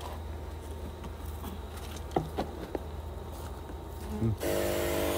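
Honey bees from a freshly installed package buzzing in an open wooden hive box, with a few light clicks. Near the end a louder steady hissing hum comes in for about a second and stops suddenly.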